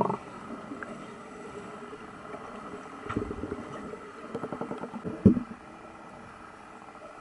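Underwater pool sound picked up by a submerged camera: a steady hum with bursts of muffled bubbling and water churning as a freediver duck-dives, and one sharp thump a little past five seconds.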